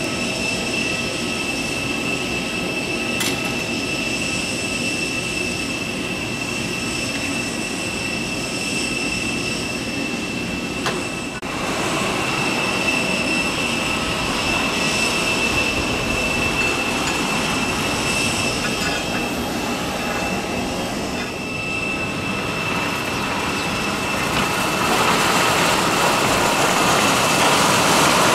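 Steady high-pitched whine over a broad rumble: aircraft machinery running on an airport apron. A louder hiss builds near the end.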